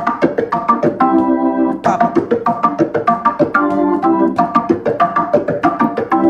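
Hammond organ playing a funk riff: short staccato chords struck several times a second, with a longer held chord about every two and a half seconds as the pattern repeats.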